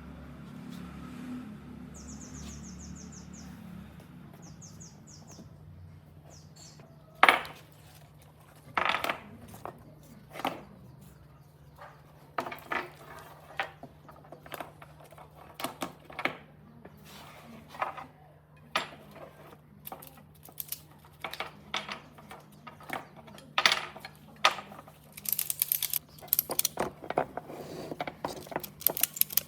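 A steady low hum, then, from about seven seconds in, irregular sharp clicks and knocks of hard objects, coming faster and faster toward the end.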